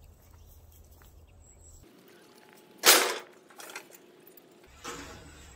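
One sudden sharp bang about three seconds in, followed by a couple of fainter knocks.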